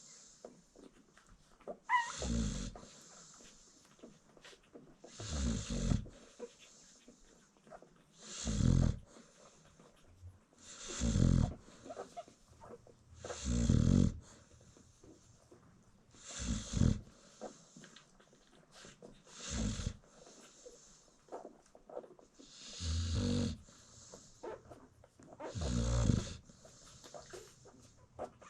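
Adult American Bully dog snoring in deep sleep: nine slow, rasping snores, one about every three seconds, with quiet breaths between them.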